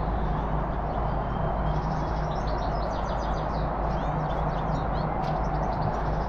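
Small birds chirping in quick repeated trills throughout, over a steady low background rumble with a faint constant hum.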